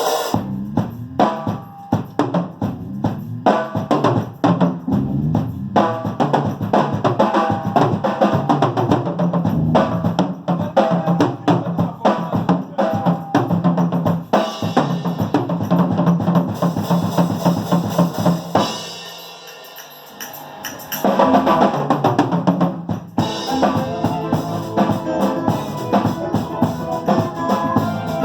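Music with a driving drum-kit beat (kick and snare) over a bass line. It thins out briefly about two-thirds of the way through, then the beat comes back.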